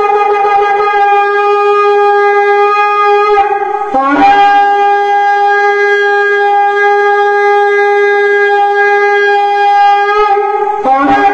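Shofar (ram's horn) blown in long held blasts. The note breaks briefly about four seconds in and scoops upward into a second long blast. Near the end come shorter notes stepping between a lower and a higher pitch.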